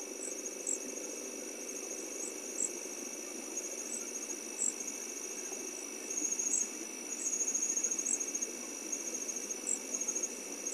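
Night insects, crickets chirring steadily in short runs of rapid pulses, with separate higher chirps every second or two, over a steady low hum.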